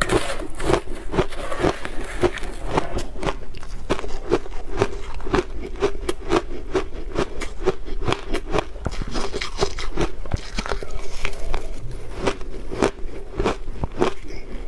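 Shaved blender ice crunching as it is bitten and chewed, in a fast, even run of crisp crunches about three a second, along with a metal spoon scraping and scooping ice in a plastic blender jar.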